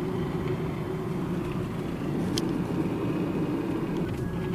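Steady road and engine noise of a car driving, with a single sharp click about two and a half seconds in.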